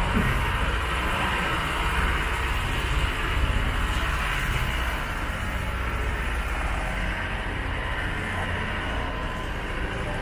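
Steady outdoor street ambience, mostly a low, even rumble of traffic with a hiss above it.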